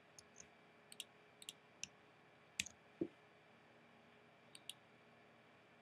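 Faint computer keyboard keystrokes, a dozen or so irregular taps over about three seconds, then two quick clicks a little over a second later.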